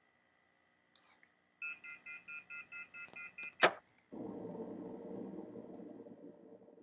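Telephone off-hook warning tone heard from a white trimline phone's handset: a shrill multi-tone beeping pulsing about five times a second for about two seconds, the signal that the line has been left off the hook. It ends in a loud clack as the handset is hung up on its base, followed by a low hissing rumble that fades out.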